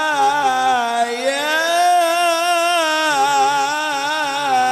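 A man's voice in melodic Qur'an recitation (tilawah) into a microphone. He holds one long, ornamented note on a drawn-out syllable, its pitch wavering, dipping about a second in and then rising again.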